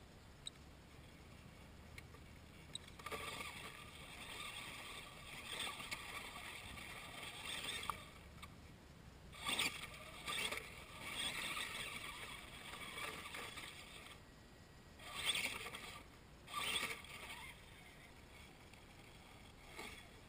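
Radio-controlled rock crawler's electric motor and gear train whining as it climbs a rock crack. It starts about three seconds in and runs on and off under throttle, with four short louder bursts of power, then goes quiet a couple of seconds before the end.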